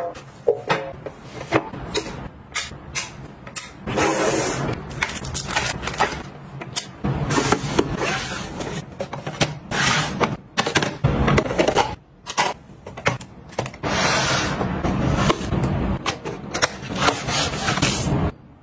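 Close handling of plastic desk organizers and paper: a run of clicks, taps and knocks as pieces are set down and fitted together, with rustling and sliding in between.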